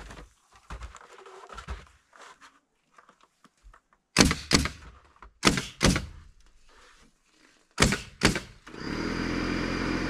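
Pneumatic nail gun firing six nails in three quick pairs, each a sharp bang, into roof rafters. About a second before the end, an air compressor starts running with a steady hum and a thin high whine.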